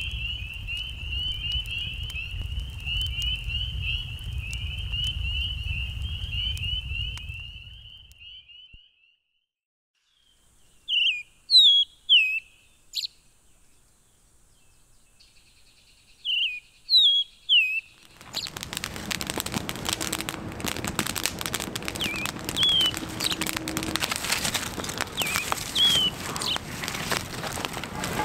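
A frog trilling steadily over a crackling campfire and a low rumble, fading out about eight seconds in. Then, in near quiet, two brief clusters of short, sharp, falling bird calls. From about two-thirds of the way through, a campfire burning with dense crackling, with a few faint bird calls over it.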